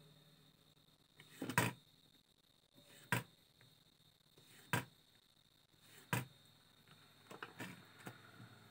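Sharp taps and clicks, about one every second and a half, as a soldering iron and a pointed metal tool work at the transformer pins to desolder them from a circuit board. Near the end there are a few quick knocks in a row as the board is picked up and handled.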